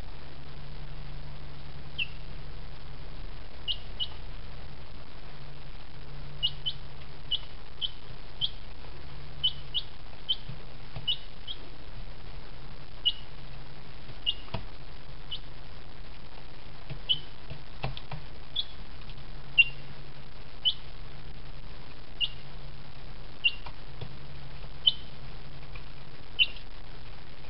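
A young chicken chick peeping: short, high, falling peeps, singly or in quick pairs, every second or so, over a steady low hum.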